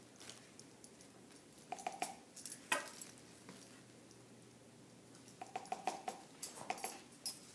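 Faint handling noises at a table: paper towels rustling, with a few light knocks and clinks from paper cups and utensils, busier near the start and again in the last couple of seconds.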